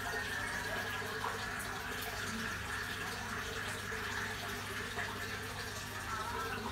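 Steady trickle of water in a fish tank, typical of an aquarium filter's outflow.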